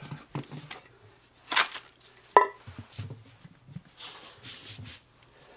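Metal tools and parts clinking and knocking, with one sharp ringing clink about two and a half seconds in, and a short scrape.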